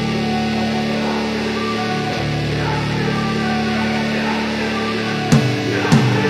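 Instrumental background music with sustained guitar chords. Drum hits come in about five seconds in.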